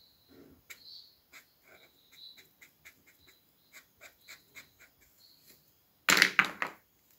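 Brown felt-tip marker scratching on paper in short strokes, a few a second, as the tree trunk is coloured in. About six seconds in there is a much louder rustling clatter, lasting well under a second.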